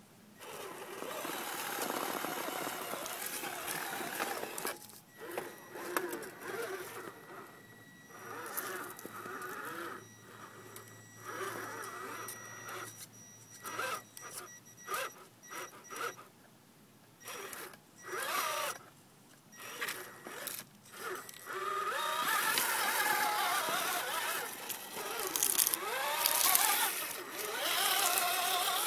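Radio-controlled rock crawler's motor and gear drivetrain whining in short stop-start bursts as it crawls over rocks. Near the end it runs longer, the whine rising and falling in pitch with the throttle.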